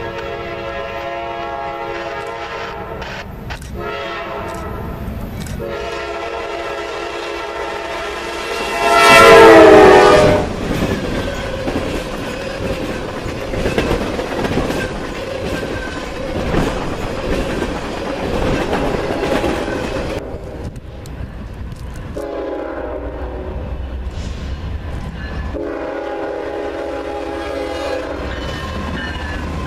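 Diesel locomotive's multi-note air horn blowing long blasts as a train approaches, the chord dropping in pitch as the locomotive passes close by about nine seconds in. The rumble and clickety-clack of the train's cars rolling past follow, and the horn sounds twice more in the last third.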